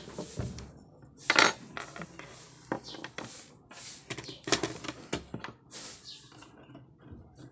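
Irregular clicks, clacks and rustling of small metal and plastic parts of a solar floodlight being handled and fitted together, with louder clacks about a second and a half in and again near the middle.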